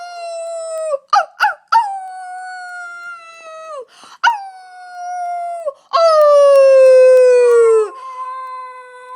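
Dog howling: a run of long howls that each slide down in pitch, broken by two short yelps about a second in, with the loudest howl in the second half and a softer held howl near the end.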